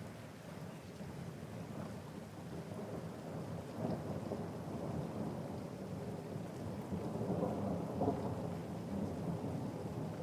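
Thunderstorm: steady rain with rolling thunder rumbling underneath, swelling from about four seconds in to its loudest near eight seconds.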